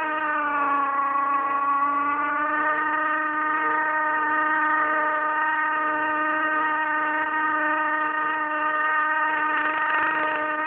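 A motor vehicle's engine running at a steady speed: its pitch dips a little and rises back in the first couple of seconds, then holds even.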